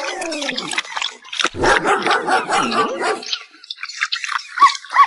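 Dog barking sounds: a rough, gliding run of barks, then about halfway through a series of short, high yelps, roughly three a second.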